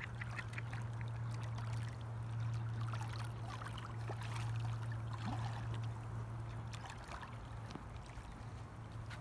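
Water splashing and lapping as a hooked blue catfish thrashes at the surface, with scattered irregular splashes and ticks. A steady low hum runs underneath.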